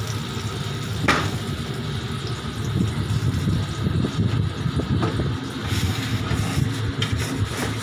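Steady low mechanical rumble of a commercial kitchen, with a sharp metal clink about a second in and another near the end as a metal pizza tray shifts on a metal oven peel.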